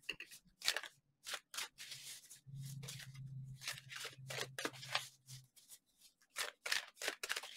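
Oracle card deck being shuffled by hand: a quick, irregular run of snapping and flicking card clicks. A low steady hum sounds for about three seconds in the middle.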